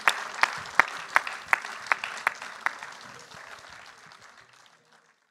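Audience applauding at the end of a lecture, with one nearby pair of hands clapping loudly at an even beat of about two and a half claps a second over the general applause. The applause fades away over the last two seconds.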